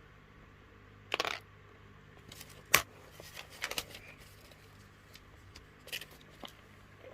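Plastic Lego pieces clicking and rattling as they are handled and snapped together: a short rattle about a second in, one sharp click near three seconds, then a few lighter clicks.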